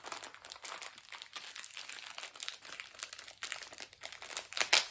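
Plastic snack wrapper crinkling and crackling as it is handled and tugged at to get it open, with a louder burst of crackles near the end.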